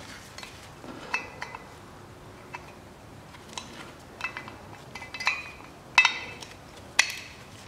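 Light clicks and metallic clinks of spare-wheel winch parts being handled and fitted back together by hand, as a cleaned cover is set back in place. The clicks are scattered and irregular, the two sharpest about six and seven seconds in.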